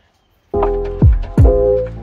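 Background music starts about half a second in, with held chords and deep bass hits that drop in pitch.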